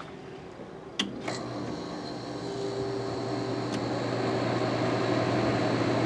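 GE 9,900 BTU window air conditioner switched back on with two clicks about a second in, then its compressor hums and its fans spin up, the noise growing steadily louder. It is restarting after its compressor cut out from overheating, with no room for its hot condenser air to escape.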